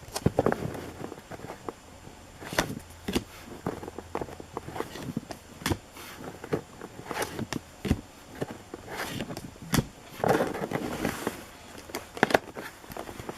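Baseball trading cards and foil pack wrappers being handled: irregular sharp clicks and snaps as cards are flipped and slid, with a longer rustle of crinkling about ten seconds in.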